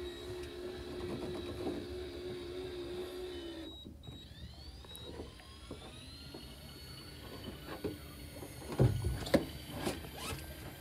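Small electric fishing reel winding in line under load, its motor making a steady whine that stops a little under four seconds in. Then a whine that rises and levels off, and a few clatters and knocks near the end, the loudest sounds.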